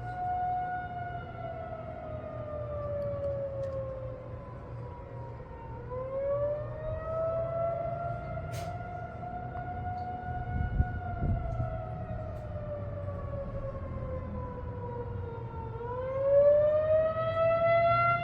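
Federal Signal 2001-230 outdoor warning siren sounding the attack signal: a single siren tone that slowly rises and falls, about one cycle every ten seconds.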